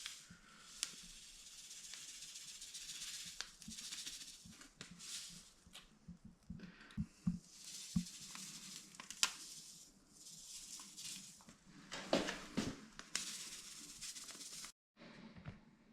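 Toilet-gelling crystals (Liquid Lock) pouring out of their package into the toilet water: a faint hissing, rattling trickle of granules that comes in several swells, with a few small clicks.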